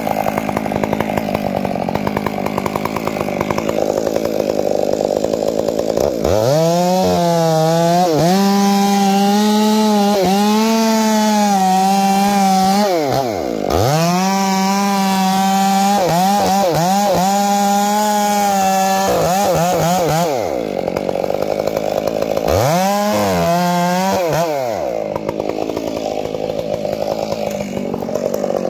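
Two-stroke chainsaw with a long bar cutting through a large redwood trunk at the stump to fell it. About six seconds in, the nearby saw throttles up to full speed and holds there with a brief dip partway. It drops off, revs once more briefly, then falls back to the steady engine sound that runs underneath throughout.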